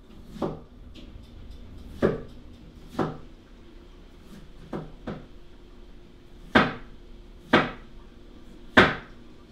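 Irregular hard knocks and clunks of things being handled on a kitchen counter, about nine of them, the loudest three in the second half.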